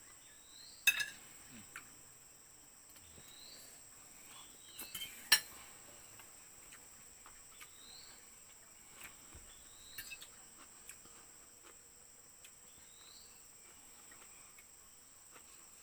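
Cutlery clinking against plates during a meal, with sharp clinks about a second in and again about five seconds in. Under it runs a steady high insect drone, and a short rising chirp repeats every two to three seconds.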